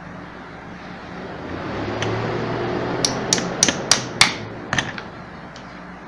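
Small hammer giving about six light taps to a blade wedged in the seam of a pedestal fan's motor casing, driving the two halves of the casing apart. The taps come about three a second and follow a stretch of handling noise.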